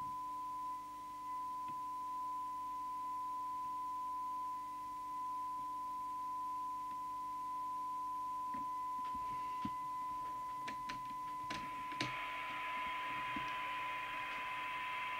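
A steady 1 kHz test tone from a CB radio's receiver, the signal generator's modulation demodulated while the detector coil is peaked at an S9 signal. A few clicks come between about 8 and 12 seconds in, and a hiss joins the tone at about 12 seconds.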